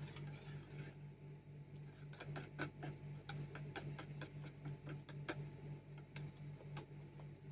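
Hand utensil clicking and tapping irregularly against a plastic mixing bowl while stirring a liquid batter of coconut milk and cornstarch until the starch has dissolved. A steady low hum runs underneath.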